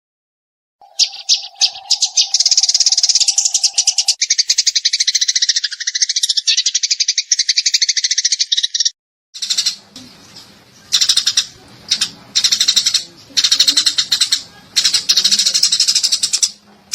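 Eurasian tree sparrow chattering in fast, continuous rattling runs of high notes. After a short break about nine seconds in, the chatter returns in separate bursts over a faint low hum. A steady lower tone sounds under the first few seconds.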